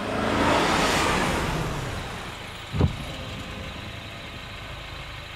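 A car pulling up, its engine swelling and then easing off as it slows, with a single sharp low thump near the middle of the stretch.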